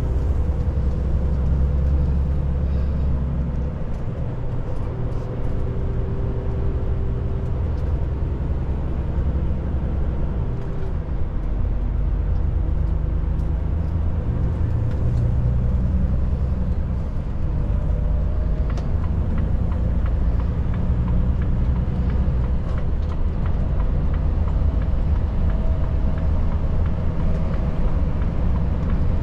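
Volvo FH 500's 13-litre six-cylinder diesel engine running on the road, heard from inside the cab with steady tyre and road noise. The engine note shifts a few times along the way.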